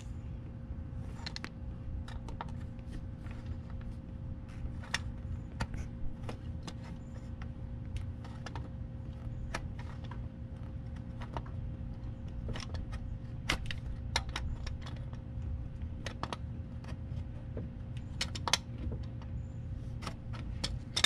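Scattered light metallic clicks and taps from hands working at the oil filter under a car, taking it off and refitting it, over a steady low hum.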